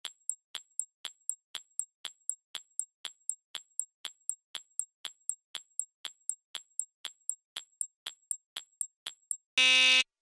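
Countdown timer sound effect: a clock ticking steadily, about four ticks a second, then a short ringing tone near the end as the timer runs out.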